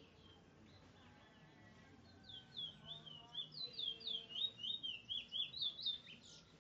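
Caged Trinidad bullfinch singing: after about two seconds, a fast run of sweet, looping, down-slurred whistled notes that lasts about four seconds.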